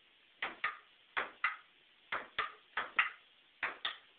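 Ping-pong rally played with wooden stools as paddles: the ball clicks sharply in quick pairs, bouncing on the table and struck by a stool, about five exchanges in quick succession.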